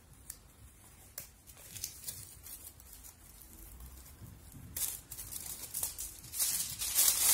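Paper seal strip being peeled off a roll of aluminium foil with a few small ticks and tearing, then the foil crinkling as it is unrolled, growing louder near the end.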